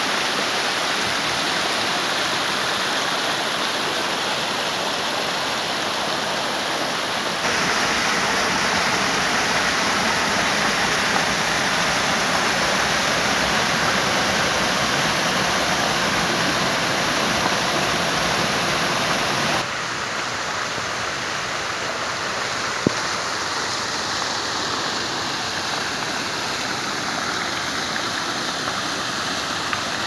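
Forest stream rushing over rocks and pouring in a small waterfall over a fallen log: a steady, full rush of water. It jumps abruptly louder about seven seconds in and drops back a little about two-thirds of the way through.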